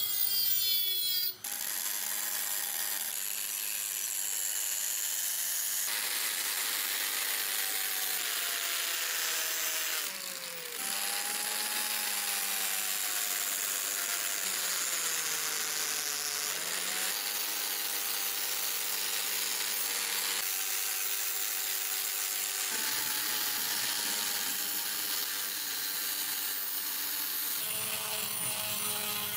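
Small high-speed rotary tool whining as abrasive sanding and polishing bits grind rust off a steel claw hammer head, the metal hissing under the bit. The motor's pitch sags and recovers as the bit bears on the steel, with a few abrupt changes where one grinding pass gives way to another.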